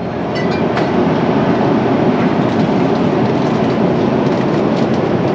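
Steady rush of an Airbus A350 airliner's engines and airflow heard inside the passenger cabin, swelling over the first second and then holding, with faint light clicks and rattles.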